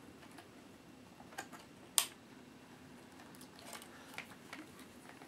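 Faint clicks and taps of small parts and fingers working inside an open laptop, with one sharper click about two seconds in and a few lighter ones near the end, over a low steady hum.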